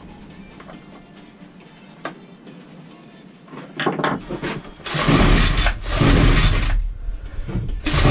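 Titan multi-tool strimmer's recoil pull-starter yanked several times in quick succession from about four seconds in, each pull a short rasping burst, the two-stroke engine turning over without starting.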